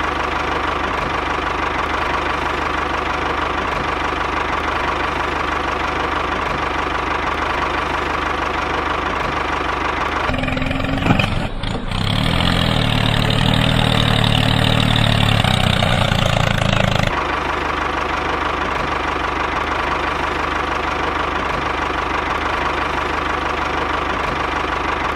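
Tractor engine running steadily with a knocking rhythm. About ten seconds in it gets louder and deeper for roughly seven seconds, as if under load, then drops back to the steady run.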